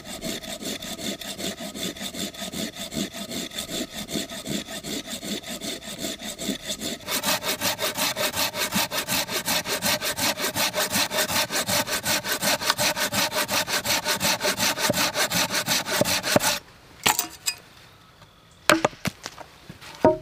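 Folding hand saw cutting through a small log resting on a stump, in quick back-and-forth strokes about four a second, louder from about a third of the way in. The sawing stops a few seconds before the end, followed by a few sharp clicks and knocks.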